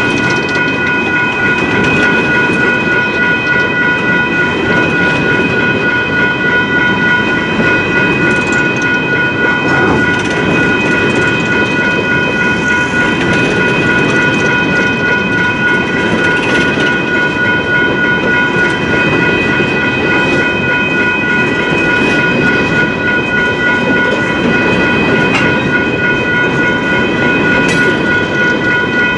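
Railroad grade-crossing warning bell ringing rapidly and steadily over the rumble and wheel clatter of a train rolling through the crossing.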